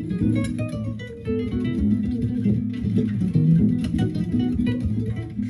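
Guitar music with bass played back through a vintage Sony STR-7035 stereo receiver and bookshelf speakers.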